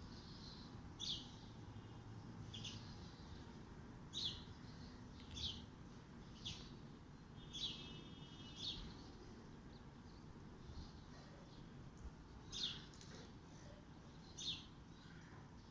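A bird giving short, high chirps, each a quick downward sweep, repeated about once a second, with a pause of a few seconds before the last two. A low, steady background rumble runs underneath.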